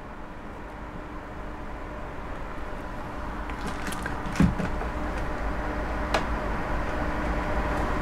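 Room tone: a steady background hum with faint held tones that grows gradually louder, with a few light clicks and one short knock about four seconds in.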